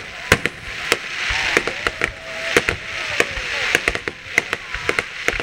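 Fireworks display: aerial shells bursting in a rapid string of sharp bangs, several a second, over a hiss that swells and fades.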